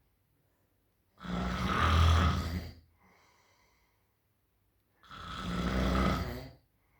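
A person snoring loudly: two long snores about four seconds apart, each lasting about a second and a half, with a faint breath out after the first.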